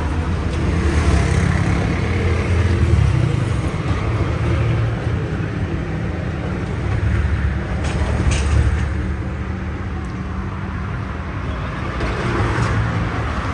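Heavy road traffic: vehicle engines running with a deep, steady rumble that swells and eases as vehicles pass. There is a short hiss about eight seconds in.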